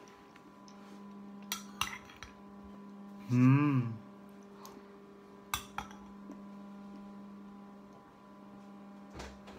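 A metal spoon clinks and scrapes against a bowl several times during eating. About three and a half seconds in there is a short, loud hummed "mmm" that rises and falls in pitch, over a steady low electrical hum.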